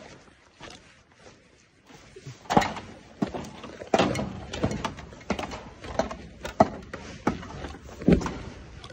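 Feet knocking and clanking on the rungs of a metal ladder as someone climbs it, a sharp knock roughly every half second to second after a quiet start.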